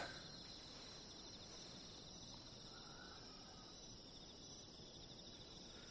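Faint crickets chirping steadily in the night background.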